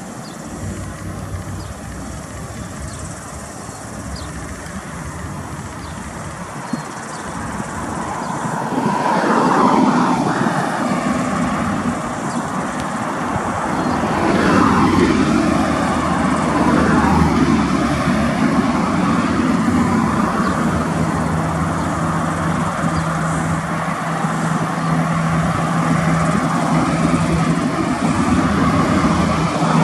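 Road traffic passing close by, cars and a truck, over the engine of a diesel freight locomotive approaching slowly. The locomotive's low, steady engine note grows louder through the second half.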